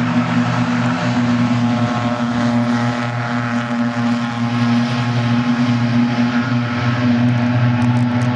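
Racing saloon car engines, BMWs among them, running hard at near-constant revs through a long bend, giving a steady, loud droning note.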